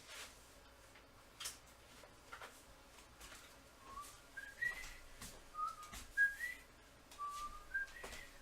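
A person whistling softly, a short tune of about eight brief notes that start about four seconds in, with a few faint clicks around them.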